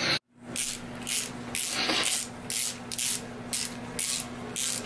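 Ratchet wrench running down the connecting-rod cap nuts on a 440 Mopar big-block: short rasping strokes, about two a second, over a steady low shop hum.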